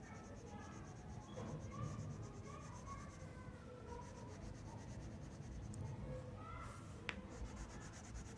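Colored pencil scratching back and forth on paper, shading in an area with steady strokes. A single sharp click sounds about seven seconds in.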